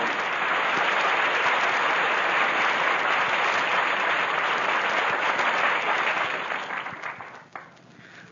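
Radio studio audience applauding, the applause dying away about seven seconds in.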